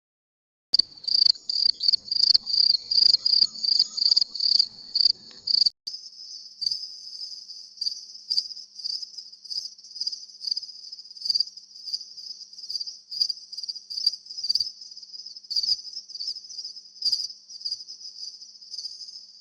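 Crickets chirping: loud, close chirps in a regular rhythm of about three a second, then, after a brief break about six seconds in, a fainter, denser chirping chorus.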